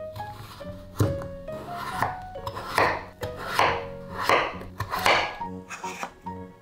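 Background music with a sharp knock about a second in, then four rasping, scraping strokes at an even pace, about three quarters of a second apart.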